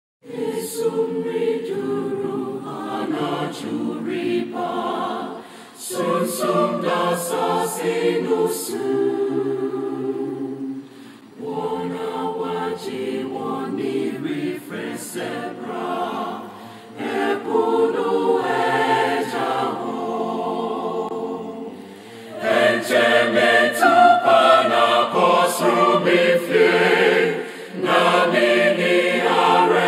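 A choir sings a hymn in Twi, starting suddenly out of silence. It moves in sung lines with short breaks between them, and swells louder for the last lines.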